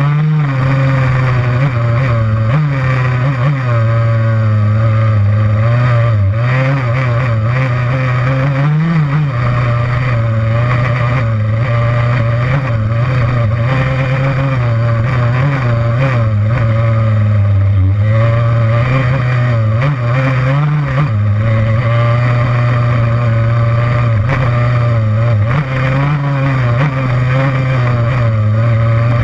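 Yamaha YZ85's two-stroke single-cylinder engine running under load while trail riding, its pitch rising and falling again and again as the throttle opens and closes.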